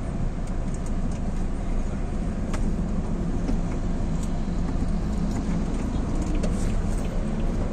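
Vehicle engine running at low speed with a steady low hum, heard from inside the cabin while creeping in slow traffic.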